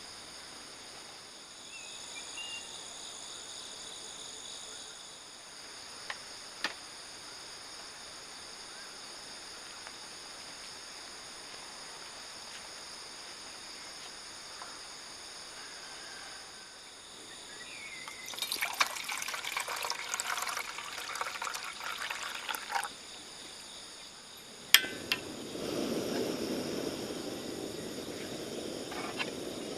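Liquid being poured into a container, a steady rushing trickle in the last few seconds, after a stretch of clinks and handling noise; a steady high insect drone runs underneath.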